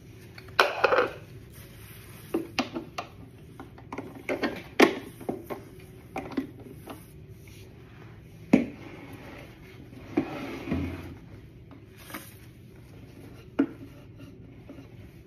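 Irregular knocks, clicks and rubbing as the wooden panels and brackets of a child's table and chair set are handled and fitted together during assembly, with a short scraping rustle about ten seconds in.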